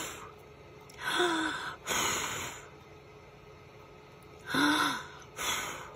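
A woman breathing on wet paint to dry it: two rounds of exhales, each a short voiced 'haa' followed by a breathy blow.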